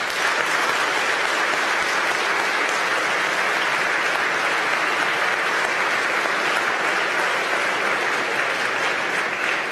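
Audience applause, many people clapping in a dense, steady patter that eases a little near the end.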